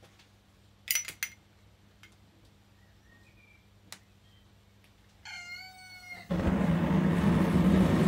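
Propane gas forge being lit: a few sharp clicks about a second in and a brief high whistle, then the burner catches suddenly about six seconds in and runs with a steady, loud rushing noise.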